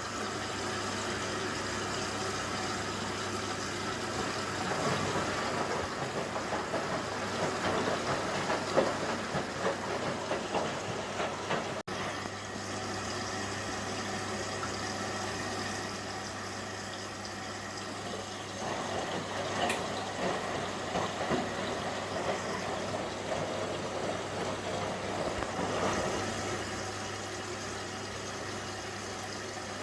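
Indesit washing machine filling with water for its rinse, with a steady low hum under the inflow. The drum turns the wet load in two spells of churning and swishing, starting about four seconds in and again near the twenty-second mark.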